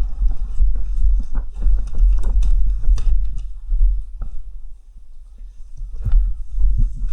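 Footsteps crunching over debris and grit, irregular sharp steps and knocks, over the low rumble of the body-worn camera shaking as its wearer moves; it goes quieter for about a second just past halfway.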